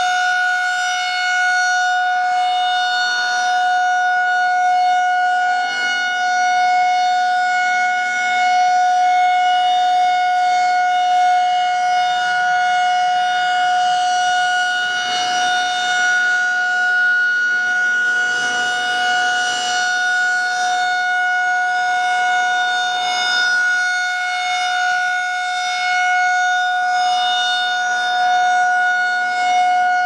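Federal Signal 2001-SRNB rotating siren sounding the steady alert signal, a loud unwavering tone with no rise or fall in pitch, running on battery power. Its loudness swells and dips gently as the rotating horn sweeps around.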